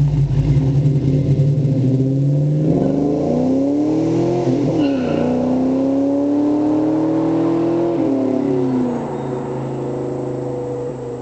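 Ford Mustang GT's 4.6-litre V8 with headers, an H-pipe and Flowmaster tips, running steadily at low revs, then accelerating hard away. Its revs climb, drop at a gear change about four and a half seconds in, climb again, and fall off around eight seconds in as the car grows fainter in the distance.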